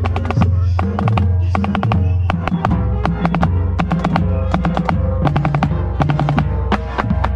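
Marching band playing, with a snare drum close by: quick, sharp snare strokes over held low chords from the band that change pitch every second or so.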